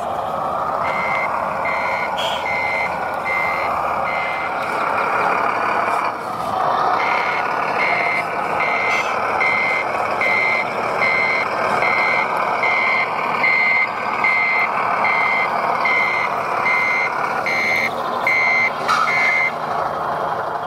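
Reversing beeper of a radio-controlled model fire truck's sound module, an even high beep about one and a half times a second, pausing for a couple of seconds about four seconds in. It sounds over a steady rushing hiss.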